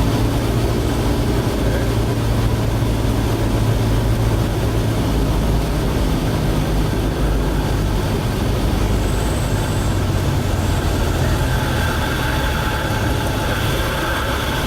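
Light propeller airplane's engine droning steadily, heard from inside the cabin in flight.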